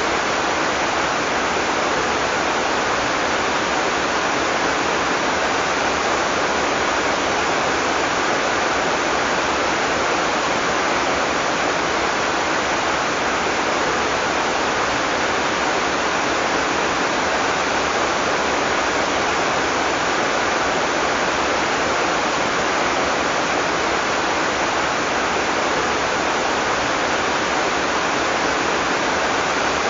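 Heavy rain pouring steadily, making a dense, even hiss with no thunder.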